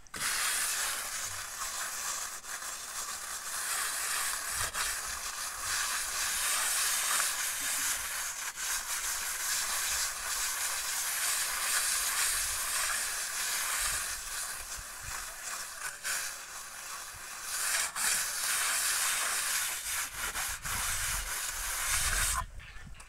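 Hand float rubbed over fresh cement render on a wall, a continuous gritty scraping hiss that wavers with the strokes and stops suddenly about a second before the end.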